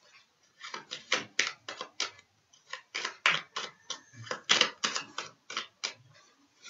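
A deck of tarot cards being shuffled by hand: a quick, irregular run of papery slaps and clicks, several a second, with a short pause near the start.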